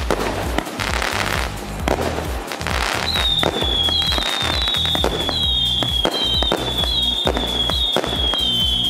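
A 120-shot, 20 mm consumer fireworks cake firing: a rapid run of launch shots and bursting, crackling stars. From about three seconds in, a string of overlapping whistles joins them, each falling in pitch, about one a second.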